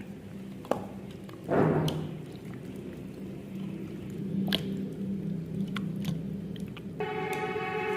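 Food being worked by hand: a loud wet squish about a second and a half in, then a few sharp clicks of utensils over a low steady hum.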